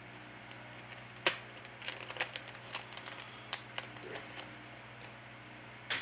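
Small clicks and crinkles of plastic phone parts being handled by gloved hands: an uneven run of sharp ticks starting about a second in and stopping after about four seconds, with one more click near the end.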